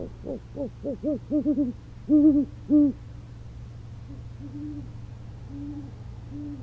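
A pair of owls hooting to each other. A quick run of short hoots speeds up, then two longer, louder hoots come about two seconds in. Softer, slightly lower hoots answer from about four seconds on.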